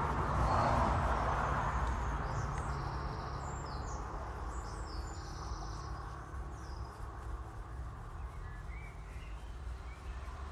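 Small birds chirping in several short calls, over a steady low rumble.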